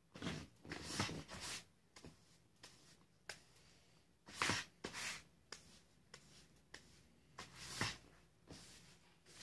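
Short, scattered rustles and scrapes of a paintbrush working in a cake face-paint palette and of the palette being handled, in three bunches: at the start, about halfway through, and near the end.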